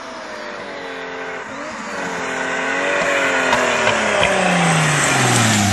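Toyota Supra's 2JZ straight-six running hard as the car approaches, growing steadily louder, its pitch wavering up and down through the middle. Near the end the engine note slides steadily down as the car comes off the throttle and slows.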